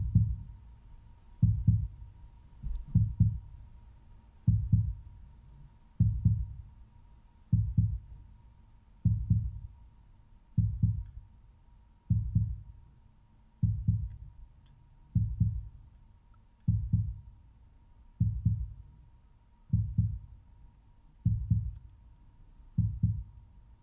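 Slow, steady heartbeat sound: deep low thumps repeating evenly about every second and a half.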